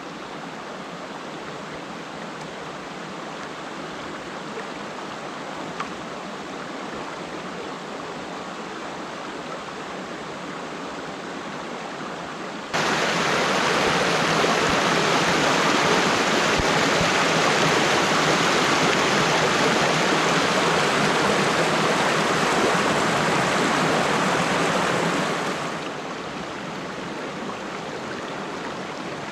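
Mountain river in a gorge, flowing with a steady rush of water. It gets abruptly louder a little under halfway through and drops back to the quieter level a few seconds before the end.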